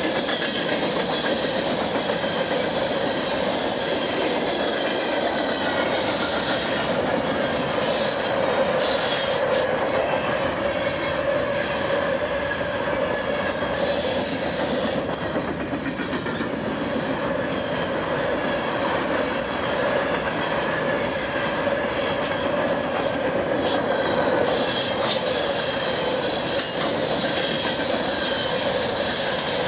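Empty covered hopper cars of a fast-moving unit grain train rolling past, a steady rush of steel wheels on rail with some clickety-clack.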